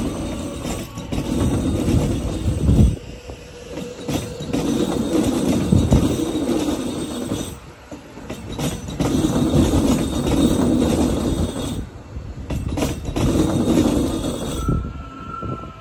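Metro Trains Melbourne electric suburban train passing close by at low speed, its wheels rumbling on the track. The sound rises and falls about every three to four seconds as the carriages go by, then drops away near the end.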